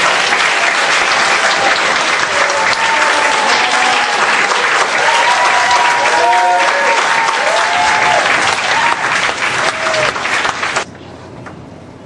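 Audience applauding, a dense steady clapping with a few voices rising over it; it cuts off abruptly near the end.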